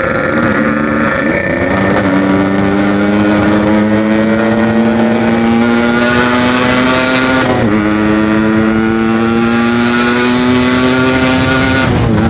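Yamaha RX-King 135cc single-cylinder two-stroke with a Packing Power aftermarket exhaust, riding under acceleration. The engine note climbs steadily through each gear and drops sharply at the gear changes: about a second in, midway, and near the end.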